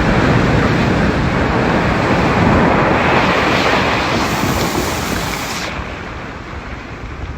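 Hurricane storm noise: a loud, steady rush of high wind and surging sea water, easing off over the last couple of seconds.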